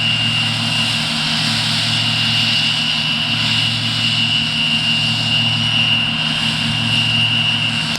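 John Deere 2264 combine harvester running steadily while harvesting: a constant engine drone with a steady high-pitched whine on top.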